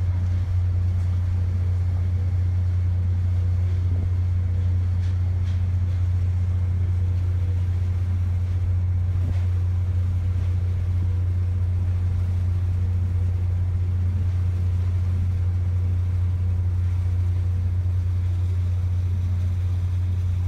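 Steady low drone of a passenger ferry's engines, heard on board.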